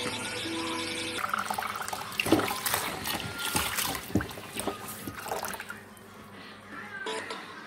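Tap water running and splashing into a plastic bowl in a stainless-steel sink, rinsing chillies, garlic and ginger. It starts about a second in, after a moment of background music, and grows quieter near the end.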